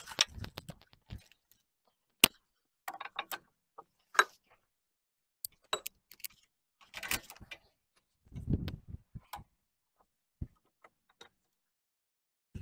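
Scattered metallic clicks, clinks and knocks of hand work on a bulldozer's hydraulic cylinder, with low thumps about half a second in and again around eight and a half seconds.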